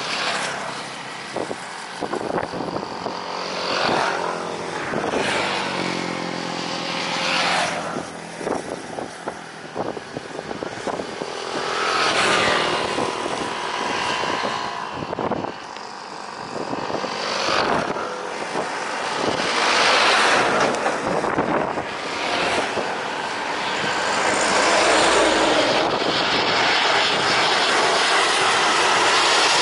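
Airliner jet engine noise mixed with road vehicles passing one after another, each a short whoosh; a broad engine roar builds over the last few seconds and is the loudest part.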